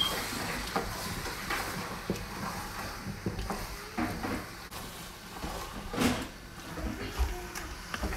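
A wooden spoon stirs a thick stew of eru leaves and meat in a large stainless steel pot, giving irregular knocks and scrapes against the pot. The loudest knock comes about six seconds in.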